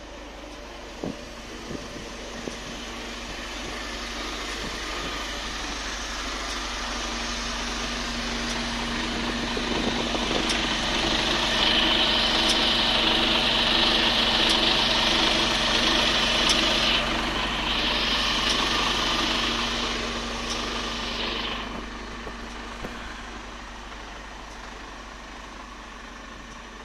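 Mercedes-Benz Arocs truck engine, converted to run on CNG and diesel, idling steadily. The sound grows louder toward the middle, where a loud hiss joins it for about ten seconds, then fades again.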